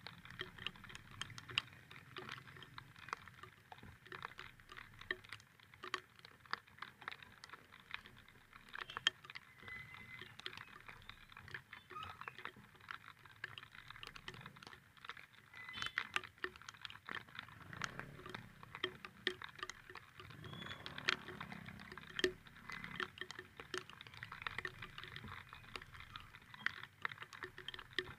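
Raindrops striking close to the microphone, heard as a continuous stream of irregular, rapid ticks and taps.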